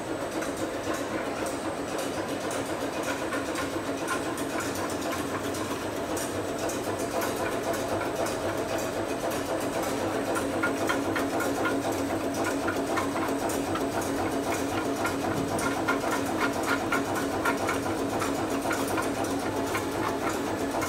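Two-lane sandwich biscuit machine running: a steady rapid mechanical clatter of many fine ticks over a continuous machine hum.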